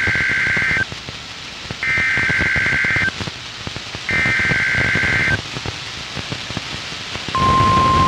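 NOAA Weather Radio Emergency Alert System SAME header: three short two-tone data bursts of about a second each, with radio hiss between them, the first already under way. About seven seconds in, the steady 1050 Hz weather radio warning alarm tone begins. This is the station's Required Weekly Test of the alert system.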